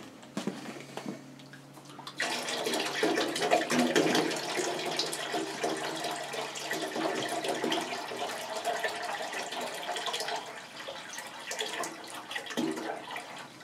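Water pouring from a plastic gallon jug into the stainless-steel tank of an ultrasonic cleaner, starting about two seconds in and running on steadily as the tank fills.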